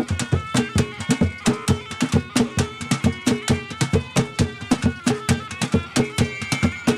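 Traditional ngoma drum music: a fast, steady drum rhythm with a higher melodic line held over it.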